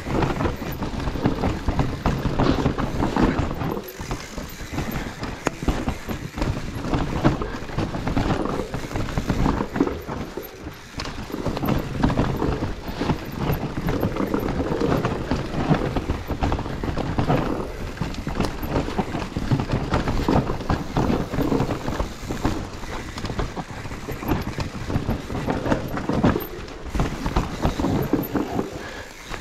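Mountain bike rattling and clattering over rough trail ground on a fast descent: a continuous jumble of knocks from the tyres, chain and frame, easing off briefly about ten seconds in and again near the end.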